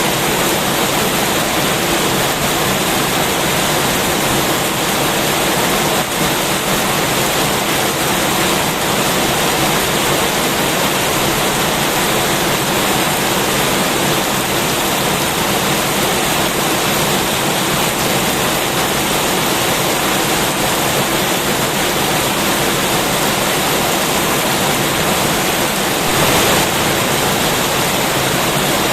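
Heavy rain pouring steadily, a dense, even hiss of falling water that swells briefly near the end.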